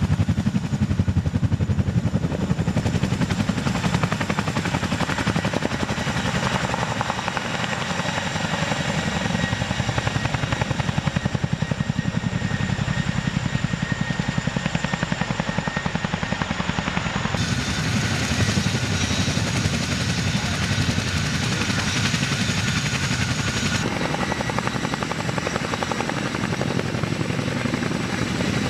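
Helicopter running steadily: a fast, even rotor beat with a steady high turbine whine. The sound shifts abruptly about 17 and 24 seconds in.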